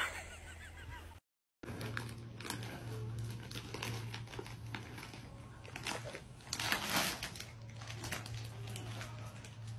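Plastic snack bag crinkling and rustling irregularly as a toddler handles it, with a louder crinkle about seven seconds in.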